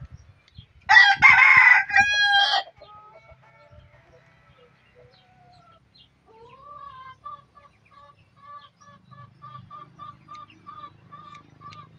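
A rooster crows once, loud and about a second and a half long, about a second in. Faint, evenly repeated short calls of another bird follow later, about three a second.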